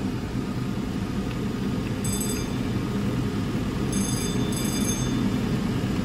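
A steady low mechanical drone with a faint hum in it, and brief faint high-pitched tones about two seconds in and again around four to five seconds in.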